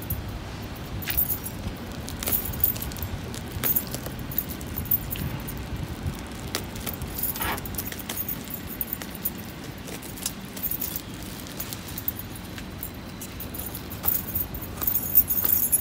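Plastic wrapping and paper packing crinkling and tearing in many short, irregular crackles as a cardboard box is cut open with a utility knife, over a low steady rumble.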